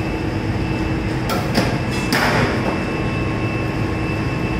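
Chicken processing machinery running with a steady drone and hum. A few sharp metal knocks and a short rattle come around the middle.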